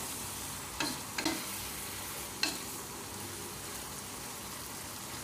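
Chicken breast and long beans sizzling as they stir-fry in a non-stick pan, stirred with a wooden spatula. A few sharp taps of the spatula against the pan come in the first two and a half seconds over the steady sizzle.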